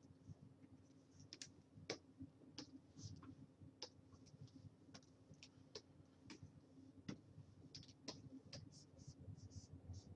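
Faint, irregular clicking of a computer keyboard and input device, a couple of clicks a second, unevenly spaced, over a low steady hum.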